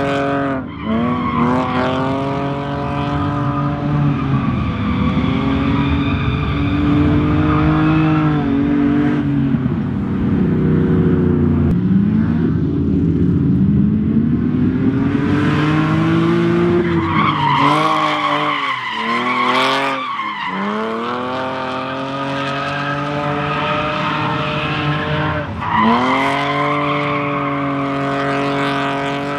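Drift car engine revving hard, the revs climbing and falling again and again with sudden drops, over the steady rush of tyres spinning and skidding sideways.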